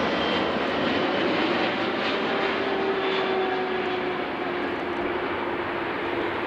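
Jet engines of a twin-engine FedEx cargo jet landing low past, steady jet noise with a whining tone that slowly falls in pitch as it goes by.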